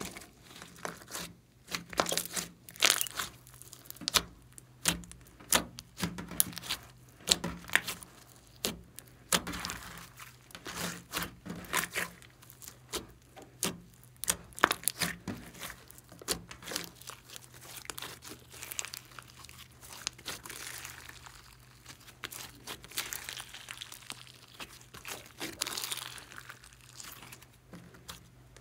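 Hands kneading, pressing and stretching a large blob of glossy blue glitter slime: dense, irregular wet clicks and pops. In the second half these give way to a softer, longer sticky crackle as the slime is stretched.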